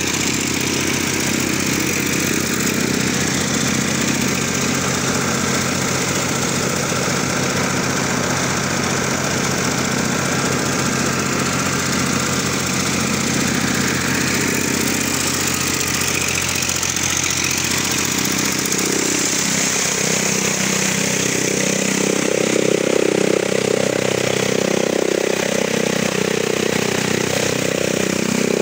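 Tractor engine running steadily under load as it drives a chaff cutter chopping pearl millet stalks into fodder. The chopping grows louder about two-thirds of the way through.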